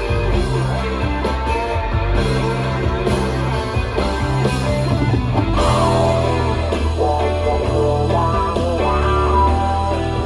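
Live rock band playing loud: electric guitar over bass guitar and drums, with bending guitar notes in the second half.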